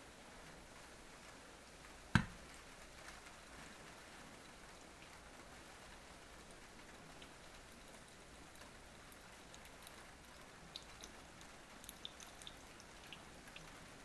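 Faint, steady pattering of a thin stream of hot water poured from a gooseneck kettle onto coffee grounds in a Hario V60 paper-filter dripper, with a single sharp click about two seconds in and small scattered ticks in the last few seconds.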